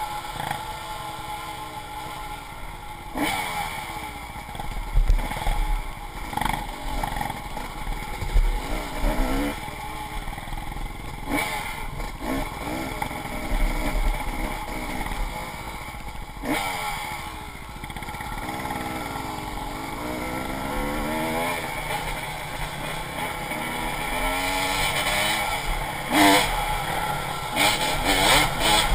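Dirt bike engine revving up and down as it is ridden, the pitch rising and falling with each throttle change, with several sharp knocks along the way.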